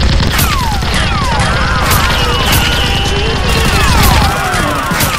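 Edited-in rapid-fire blaster sound effects: a fast run of shots with repeated falling zaps over it. The shots thin out near the end.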